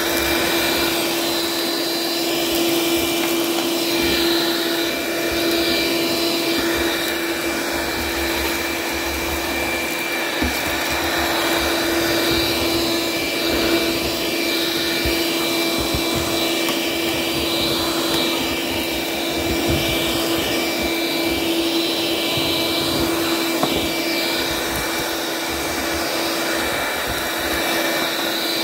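DeWalt 20V cordless vacuum running steadily, a constant motor whine over the rush of air, as it picks up scraped debris from the countertop, with a few small ticks along the way.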